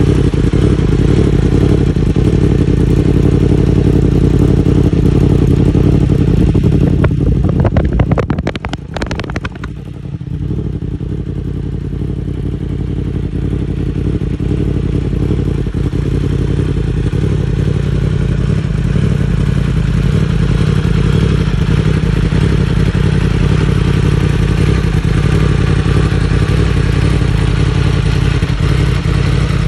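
Yamaha R1's inline-four engine idling steadily through an Akrapovič silencer, with a short clatter and a dip in level about eight seconds in.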